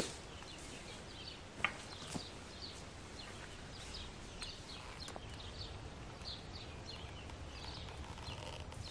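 Small woodland birds chirping, short high calls scattered throughout, with a couple of sharp snaps underfoot about one and a half and two seconds in.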